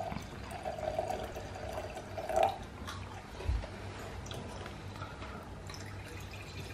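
Red wine pouring from a glass bottle into a stemmed wine glass, a steady stream splashing for about two seconds and ending a little louder. A dull knock follows about a second later.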